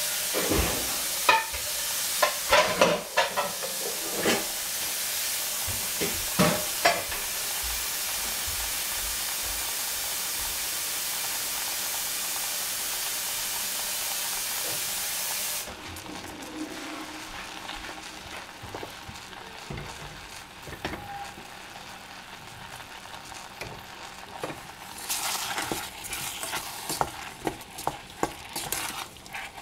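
Cold water running hard from a tap, with a few clunks of a pot in the first seconds, then shut off suddenly about halfway through. Near the end, a wooden spoon clicks against a stainless steel saucepan as fruit is stirred.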